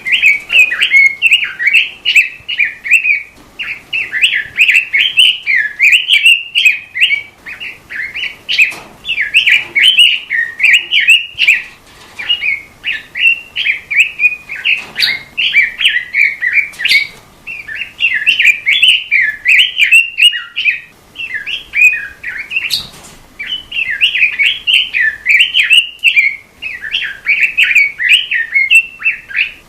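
A robin singing a continuous, rapid warbling song around a narrow high pitch band. The song comes in phrases of a few seconds, broken by short pauses.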